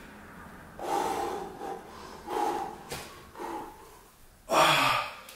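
A man breathing hard under exertion during a high-intensity dumbbell set: four forceful breaths about a second apart, the last one the loudest and sharpest.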